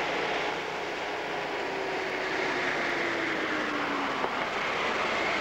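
Open-top Jeep driving up a dirt track, its engine running steadily with a tone that slowly drops in pitch.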